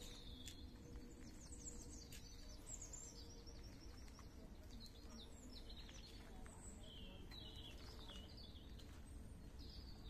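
Faint birdsong: small birds chirping and trilling in quick falling strokes, over a steady low hum and background rumble.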